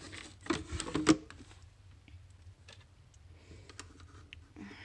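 Foil-covered mesh screen lid being put back onto a glass terrarium: a quick run of clicks and knocks from the lid's frame, the loudest about a second in, then a few light ticks as it is fitted and latched.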